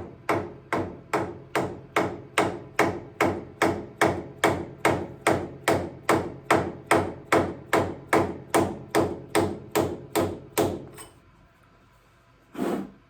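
Hammer tapping a scrap aluminium driver at an even pace of about two and a half ringing blows a second, driving the tractor's steering cylinder top seal down into its bore. The blows stop about eleven seconds in, and one short knock follows near the end.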